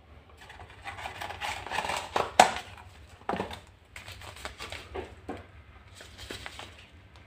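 Paper and thin card of a tea advent calendar rustling and tearing as its door is opened, with a sharp crack about two and a half seconds in, then a small paper tea sachet crinkling between the fingers.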